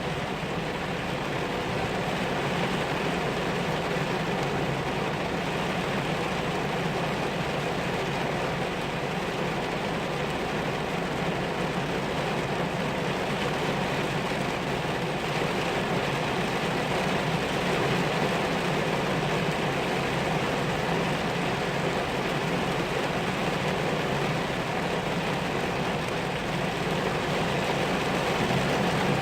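Heavy rain pouring down: a steady rushing noise.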